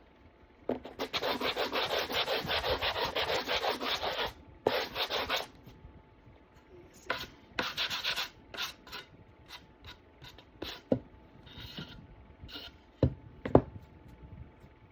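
Hand sanding of dried paint on a wooden breadboard with sandpaper: quick rasping back-and-forth strokes in a long run, then shorter bursts of strokes. A few light ticks follow, then two sharp knocks near the end, the second being the loudest sound.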